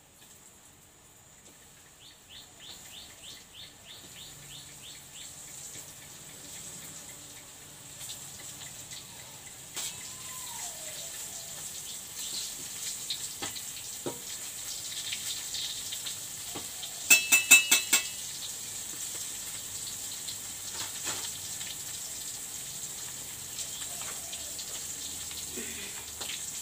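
Floured salted fish (gereh petek) frying in hot oil in a pan: a steady sizzle that builds up over the first several seconds. About seventeen seconds in, a quick run of about six sharp taps stands out as the loudest sound.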